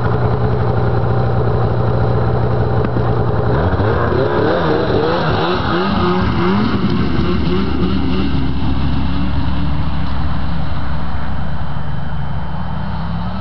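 Arctic Cat F5 Firecat snowmobile's 500cc two-stroke twin engine running steadily, then about four seconds in it takes off at full throttle, its pitch climbing and wavering as the clutch and track take up, before settling into a steady high note that fades as the sled runs away across the ice.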